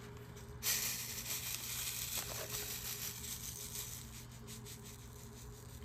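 Crinkling and rattling of a small plastic bag of diamond-painting drills being handled and opened, starting about half a second in and fading out after about four seconds.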